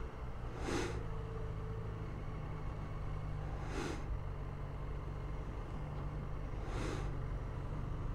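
Yamaha XJ6N's 600 cc inline-four engine running steadily at low road speed, with three short rushes of noise about three seconds apart.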